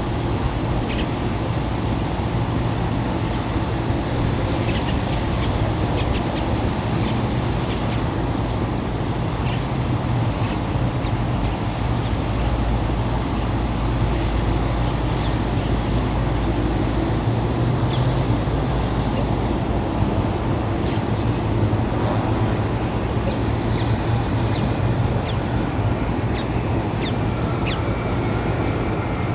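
Jet aircraft engines running with a steady low rumble, with short high chirps and clicks scattered through the second half.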